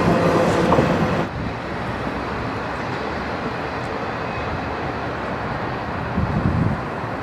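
Freight train rolling past. Its loud wheel-and-rail noise cuts off abruptly about a second in, leaving a steady low rumble.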